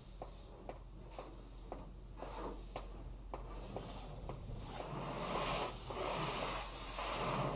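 High-pressure car wash spray hitting the car's windshield and body, heard from inside the cabin: a hiss that swells in surges and grows louder in the second half as the wand sweeps across the glass. Before it, faint ticks about two a second.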